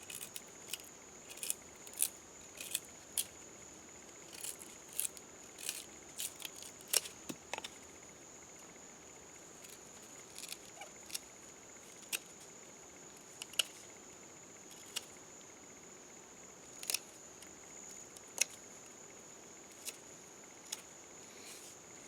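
A steady high-pitched chorus of crickets, with irregular sharp clicks and taps from hand work on the wooden fire-making set, coming thick in the first eight seconds and sparser after.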